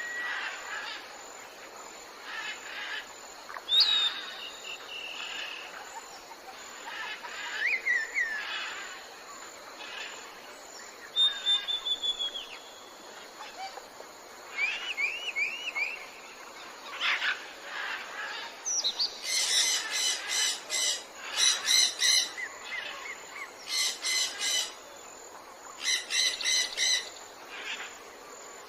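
Birds singing and calling: scattered chirps and short whistled phrases, then bursts of rapid trilling in the second half, over a faint steady hiss.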